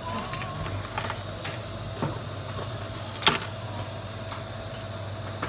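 A few light, sharp clicks and taps, the loudest about two seconds in and again a little after three seconds, over a steady low electrical hum.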